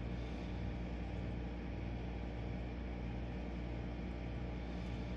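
Steady low hum with a faint hiss and no distinct events: workshop room tone while a wire splice is soldered.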